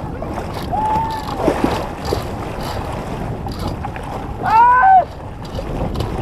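Wind on the microphone and water rushing against the hull of a small round skiff as it is pulled along by a hooked fish. Two short high cries cut through it, one about a second in and a louder one near the end.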